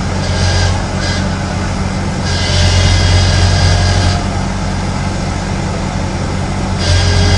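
Mired tracked excavator's diesel engine running under load, with a high squeal that comes and goes, longest about two seconds in and again near the end, as the machine tries to turn its tracks.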